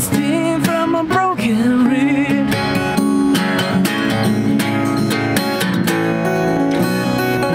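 Epiphone J-15 EC acoustic guitar strummed in a steady rhythm, chords ringing between the strokes.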